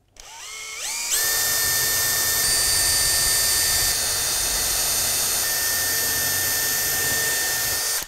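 Makita cordless drill with a small 1.5 to 2.5 mm bit drilling an alignment hole through a point-motor template into the baseboard. The motor whine climbs in steps over the first second as the trigger is squeezed, runs steady at full speed for about seven seconds, then stops abruptly.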